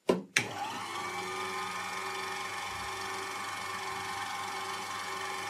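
Emco Unimat 3 mill head's electric motor switched on with a couple of sharp clicks, spinning up to speed in under a second and then running steadily with a fly cutter set at about 560 RPM.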